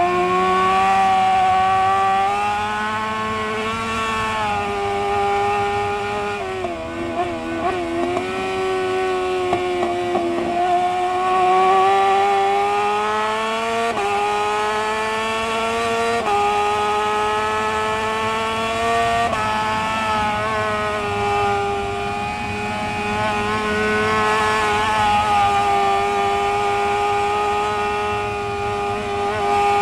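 Honda CBR1000RR superbike's inline-four engine at racing speed, heard from onboard and held high on the throttle, with sharp jumps in pitch at gear changes. About seven seconds in the revs waver and fall as the bike slows for a bend, then climb again, all over a steady rush of wind.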